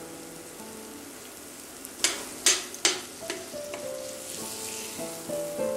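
Metal spoon stirring and scraping in a stainless steel pan, with three sharp knocks against the pan in quick succession about two seconds in, while the onion and tomato mixture sizzles. Soft background music with a stepping melody is also heard.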